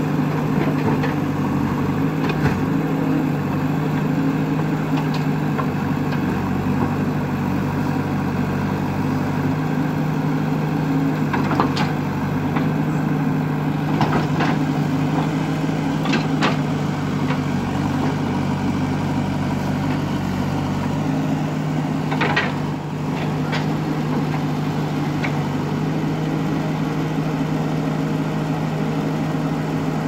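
JCB backhoe loader's diesel engine running steadily at a constant pitch while the backhoe digs, with a few short knocks from the bucket working the soil.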